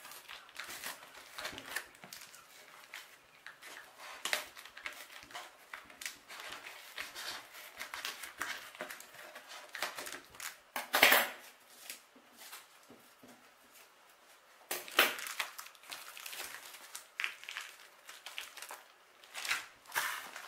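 A taped cardboard shipping box being cut and torn open by hand: irregular scratchy rasps and rustles of cardboard and packing tape, with a loud tearing stroke about halfway through and another a few seconds later.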